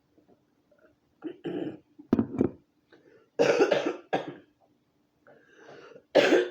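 A woman coughing in a series of short, harsh coughs, about five of them. The last ones are the loudest.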